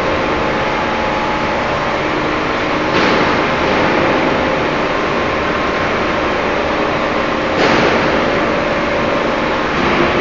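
Machinery running steadily with a constant hum and several steady tones, and a louder rushing hiss about three seconds in and again near eight seconds.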